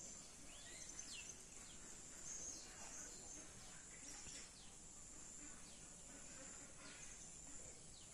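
Faint outdoor birdsong: scattered short chirps and calls from small birds, over a steady high hiss.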